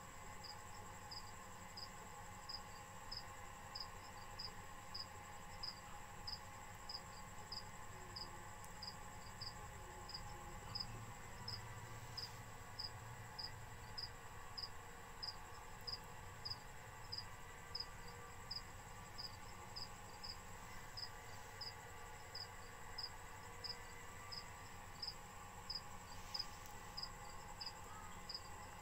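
A cricket chirping steadily, about two short high-pitched chirps a second, over a faint steady high whine.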